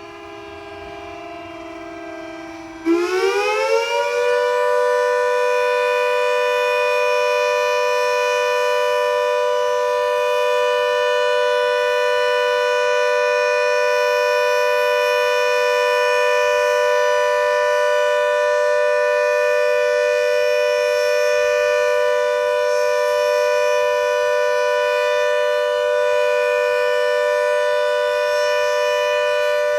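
Civil defence siren sounding for a test. A quieter, lower steady tone is followed about three seconds in by a sudden loud start that rises quickly in pitch, then holds a steady two-note wail.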